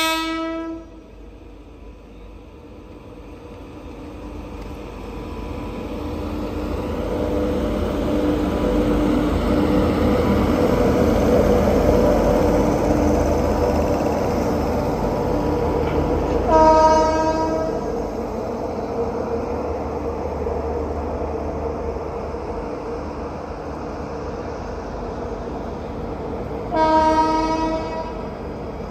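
Indian Railways express train passing: the rumble and rail clatter of its coaches builds over the first several seconds and then holds steady. The locomotive's horn sounds three times: a short end of a blast at the very start, then two blasts of about a second each, one past the middle and one near the end.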